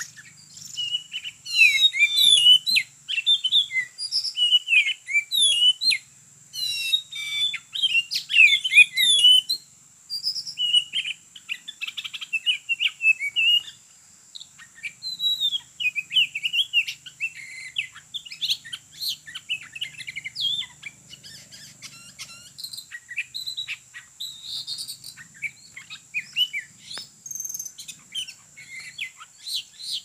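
Oriental magpie-robin song: quick runs of varied whistles and chirps, densest in the first ten seconds and more scattered after. A steady high-pitched hum runs underneath.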